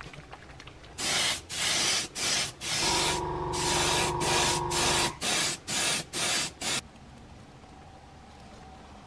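Airbrush spraying metallic gold acrylic paint in a run of short hissing bursts of air, with one longer spray of about two seconds in the middle.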